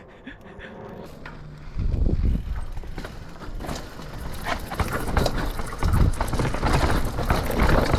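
Mountain bike riding down a rough dirt-and-rock trail section: tyres crunching over dirt and rocks, with the bike knocking and rattling in a dense, uneven run of impacts. It gets much louder about two seconds in.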